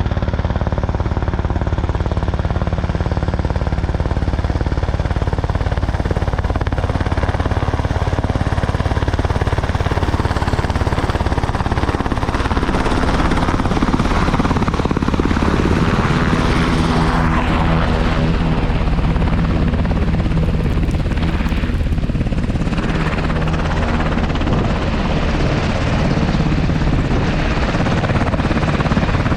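Helicopter running close by, its rotor beating steadily and loudly, with engine and rotor tones growing stronger from about halfway through.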